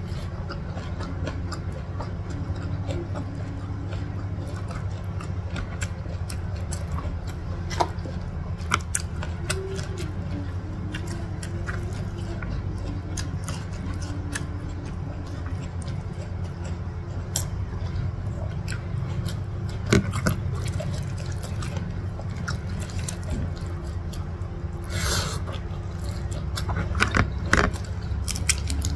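Close-miked eating sounds: chewing and mouth smacks on fried instant noodles, with many short scattered clicks over a steady low hum. Near the end, a few louder crackles and clicks as a boiled prawn's shell is peeled by hand.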